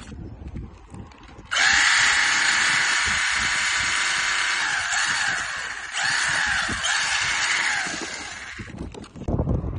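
Small electric motor and gear drive of a 4WD RC car whining at high speed. The whine starts suddenly, dips and recovers in pitch twice as the throttle eases, and cuts off near the end.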